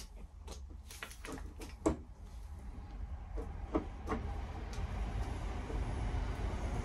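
Short metallic clicks and knocks as a cranked hand tap wrench is lifted off a tap held in a bench vise, the loudest knock a little under two seconds in. A low steady rumble grows louder under them.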